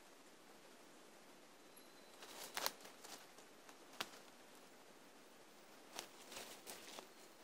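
Quiet forest background with a few brief crackles and snaps in dry leaf litter: one cluster about two seconds in, a single sharp click about four seconds in, and another cluster near the end.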